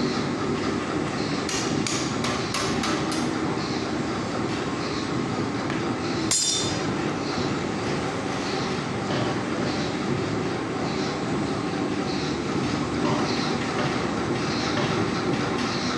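Straw briquetting press running steadily, with a faint pulse repeating a little faster than once a second. A few sharp clicks and knocks come in the first few seconds, and about six seconds in there is one sharp metallic clank with a brief ring.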